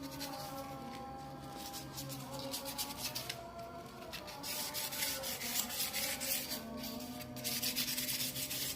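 Hand scrubbing of a grimy, rusty engine block, a continuous rasping rub, louder in the second half.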